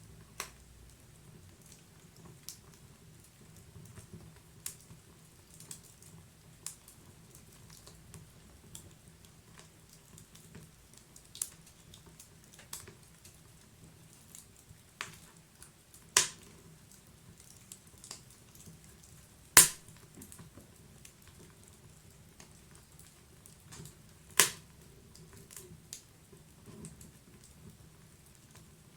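Wood fire burning in a fireplace: irregular sharp crackles and pops over a faint low rush of flame, with a few louder snaps scattered through.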